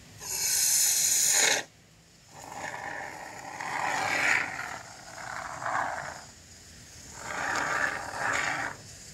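Aerosol can of expanding sealant foam spraying: a loud high hiss for about a second and a half, then, after a short pause, longer, lower and rougher bursts as the foam is laid into the gaps between rocks.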